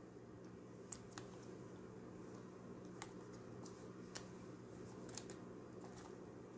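Faint handling noise: a few light clicks and taps from a clear hard-plastic earbuds case turned in the fingers, the sharpest about a second in, over a low steady hum.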